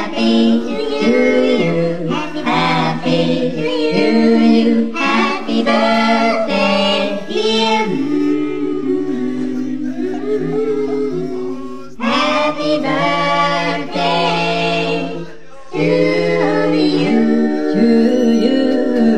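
Several voices singing a song over steady held chords, loud throughout, with a short break about three-quarters of the way in.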